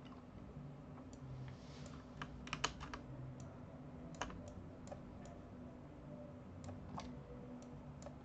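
Scattered clicks of a computer mouse and keyboard keys, with a quick run of clicks about two and a half seconds in, over a faint steady low hum.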